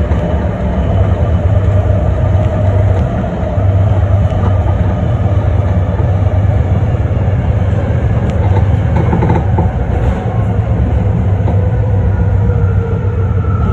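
BART Fleet of the Future train running through a subway tunnel: a loud, steady rumble of wheels on rail, with a whine that slowly falls in pitch.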